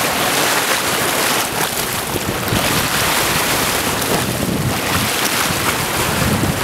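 Steady rushing of high floodwater on a river, mixed with wind buffeting the microphone in uneven gusts.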